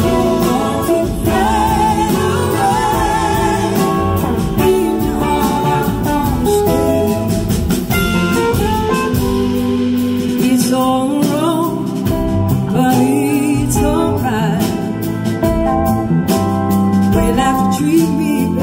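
Live blues-rock band playing: a woman singing lead over electric guitars, bass guitar and drums.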